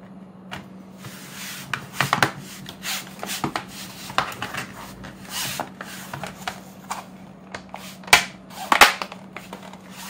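Plastic bottom cover of a Toshiba Chromebook 2 clicking into place as hands press around its edges, the clips snapping shut one after another. The sharp, irregular clicks start about a second in, mixed with some rubbing of hands on the case, and the loudest snaps come near the end.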